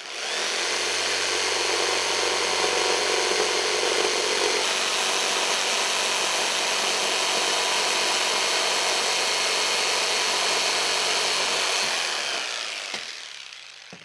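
Corded jigsaw cutting through a plywood sheet, running steadily for about twelve seconds, then fading away and stopping near the end.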